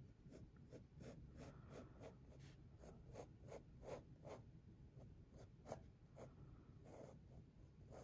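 Pencil sketching on watercolour paper: faint, short scratchy strokes repeating about three times a second.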